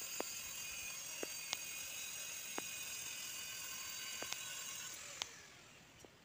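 Angle grinder running with a steady high whine while its disc cuts a 45-degree bevel along the edge of a porcelain floor tile, with a few sharp ticks; about five seconds in it is switched off and the whine fades away.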